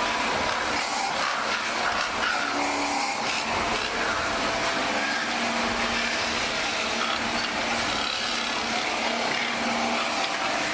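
Belt-driven lathe spinning a stainless steel pot while a hand-held cutting tool is pressed against the metal, a steady scraping noise with faint tones coming and going.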